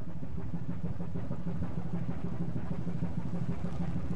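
Ship's engine running with a steady low drone.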